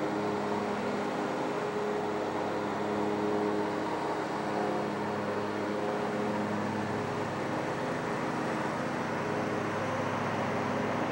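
Steady outdoor background of distant road traffic, an even rumble with a faint steady hum under it.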